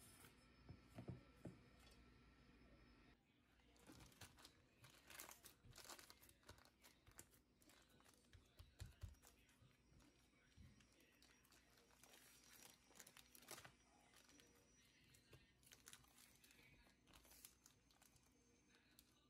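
Faint crinkling and crackling of a plastic zip-top bag as a slab of potato dough is pushed into it and pressed flat. In the first few seconds, soft low thuds of hands working the dough in a metal bowl come before it.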